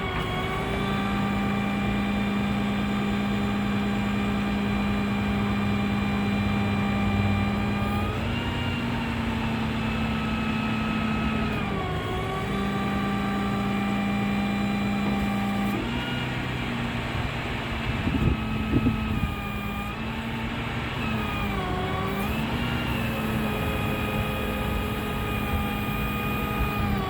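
Dodge 5500 truck engine held at its raised PTO speed, driving the crane's hydraulics. Its steady tone dips and shifts in pitch several times as crane functions are worked. A short clatter of knocks comes about two thirds of the way through.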